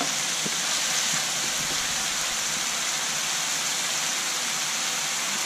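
Ground onion masala sizzling steadily in hot oil in a steel kadhai, left to cook without stirring.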